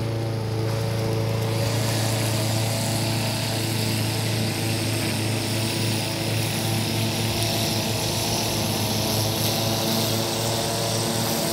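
Small lawn-mower engine running at a steady, unchanging speed.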